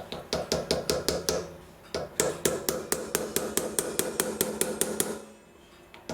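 Rapid, even light taps on metal, about seven a second, each ringing briefly, in two runs with a short pause about two seconds in: a jewel bearing being tapped into the clock's bearing plate.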